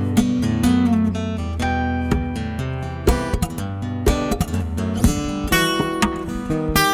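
Solo steel-string acoustic guitar played fingerstyle, with the right hand tapping notes on the fretboard. Quick, sharp-attacked notes ring over sustained low bass notes.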